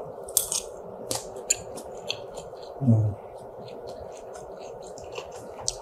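A person chewing a mouthful of rice and fried chicken with sambal, heard close through a clip-on microphone: many small wet mouth clicks, with a short closed-mouth hum about three seconds in.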